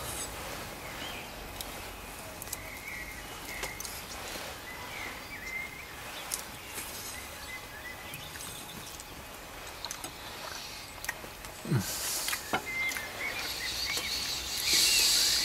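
Small birds chirping over a steady outdoor background hiss, with scattered clicks of a knife against a wooden cutting board as sausage is sliced and a brief louder rustle near the end.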